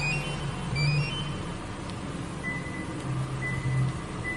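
Toyota Venza engine idling steadily after a remote start, with three short high beeps in the second half.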